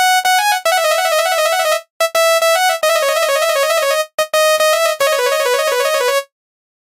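Electronic 'telolet' basuri bus horn playing a fast, bright melody in three phrases of about two seconds each, then stopping short near the end.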